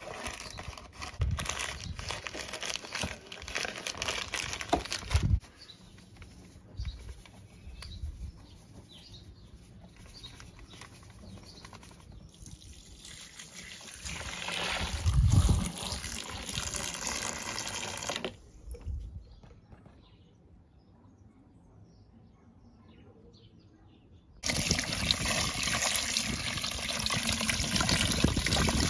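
Bicarbonate of soda shaken from a cardboard box into a plastic basin of combs and brushes. About halfway through, warm water is poured from a plastic jug into the basin. After a brief silence, an outdoor tap runs steadily onto hairbrushes over a bucket near the end.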